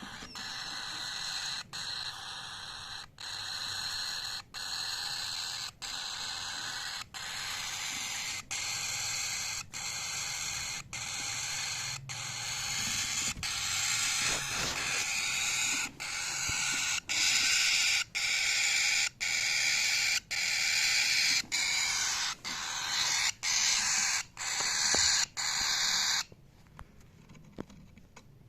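Cockatiels chirping in a dense, continuous chatter, cut by brief regular gaps about every second and a quarter. The chatter stops abruptly near the end, leaving a couple of short rising whistles.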